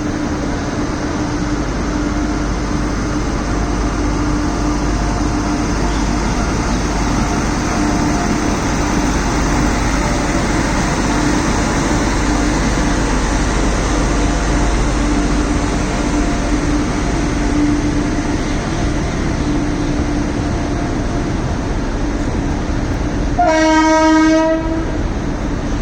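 WAG-9 three-phase electric locomotive humming steadily, a sustained electric drone over a low rumble. Near the end a train horn sounds once for about a second and a half.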